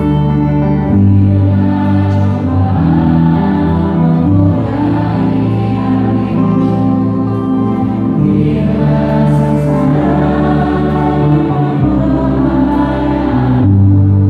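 Two women singing a gospel worship song in harmony, accompanied live by keyboard, electric guitar and bass.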